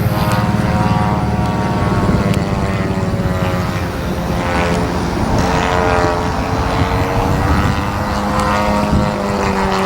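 The 50cc gas engine and propeller of a large RC aerobatic plane running in flight. Its pitch rises and falls several times as the plane manoeuvres.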